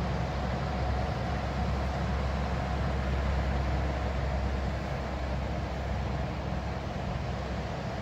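Steady wash of outdoor noise from traffic on a seafront road and small waves breaking on the shore beyond it, with a strong low rumble underneath.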